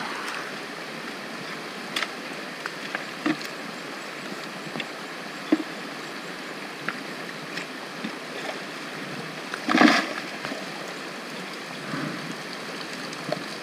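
Shallow creek running over rocks, with scattered knocks and clacks of stones and gravel being dug and handled in the streambed, and one louder half-second noise about ten seconds in.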